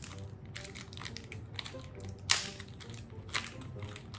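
Small clear plastic ziplock bag crinkling and crackling in the hands as it is handled, in irregular crackles with one sharper crackle about halfway through.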